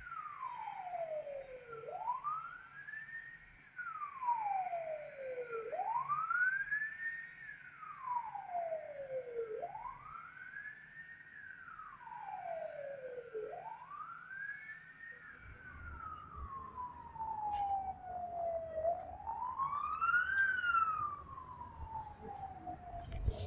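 Russian emergency vehicle siren wailing. Each cycle rises quickly to a high pitch and falls slowly, about one every four seconds, five times over. After about fifteen seconds the cycles slow and a low rumble joins in.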